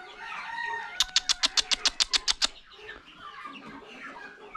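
Domestic chickens clucking softly. About a second in comes a rapid run of about a dozen sharp clicks, roughly eight a second, lasting about a second and a half. This rattle is the loudest thing heard.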